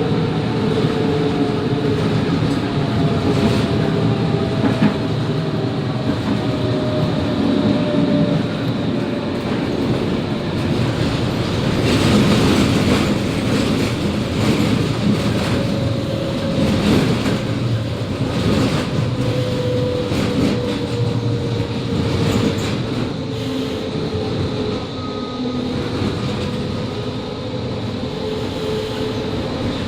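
Interior of a Končar TMK 2200 low-floor tram running: a steady rumble under an electric whine that slides down in pitch twice. A run of clicks from the wheels over the rails comes in the middle.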